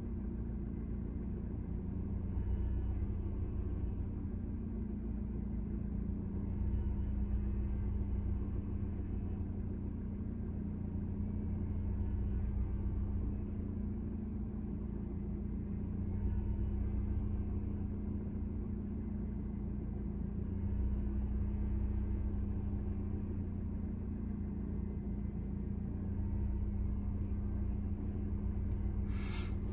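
Car engine idling, heard from inside the stationary car's cabin: a steady low hum that swells slightly every four or five seconds. A brief rustling noise comes just before the end.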